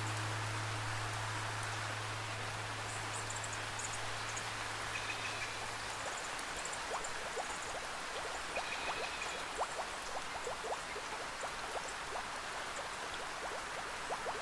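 Steady rain with a low sustained drone note fading out about six seconds in. From about seven seconds on, many quick plinking water drops fall, with a few faint high chirps over them.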